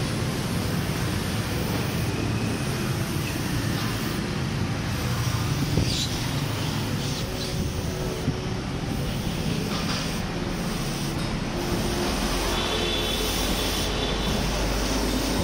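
Aerosol carburetor cleaner hissing out through its red extension straw into a motorcycle carburetor, over a steady low rumble, with a few light clicks.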